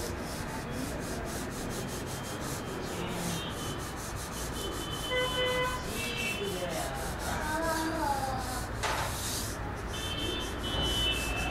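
Pen nib scratching and rubbing across paper as a sketch is drawn in quick strokes, with one louder stroke near the end.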